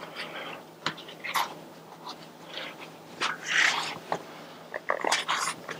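Bicycle tyre being worked onto the wheel rim by hand: irregular rubbing, scraping and clicking of the rubber against the rim, with a longer scratchy rub a little past halfway and a few sharp clicks near the end.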